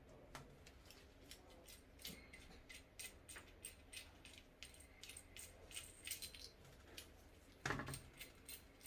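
Faint, quick, irregular light clicks and clinks, like small metal parts being handled, with one louder knock near the end.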